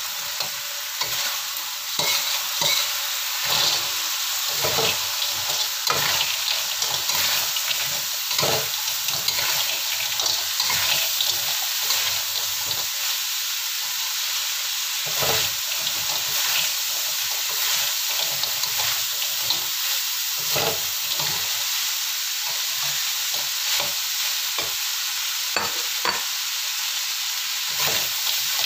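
Metal spatula stirring and scraping fried taro cubes through chilli sauce in a wok, with irregular scrapes and knocks against the pan over a steady sizzle.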